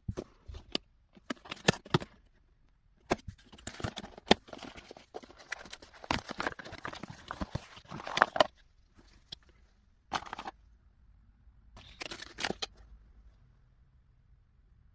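Phone packaging being handled and opened by hand: irregular clicks and taps with rustling and scraping, busiest in the middle, then two short bursts near the end.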